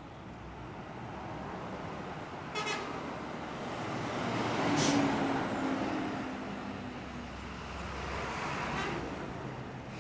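Intercity bus and heavy traffic passing close by, the engine and tyre noise swelling to a peak about halfway and then fading. A short horn toot sounds about two and a half seconds in, with a fainter one near the end.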